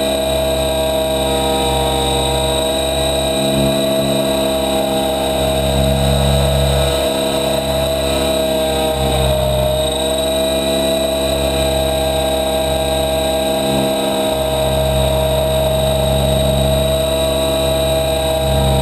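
Helicopter in flight: a steady engine whine with a low rumble that swells and fades at intervals. The pitch dips briefly and recovers about nine to ten seconds in.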